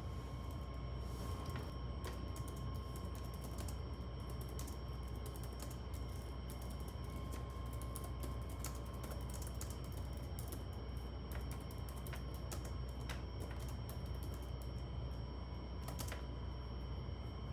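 Typing on a computer keyboard: quick, irregular keystrokes going on throughout, over a steady low hum.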